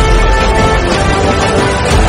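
Background music with sustained tones and a deep bass.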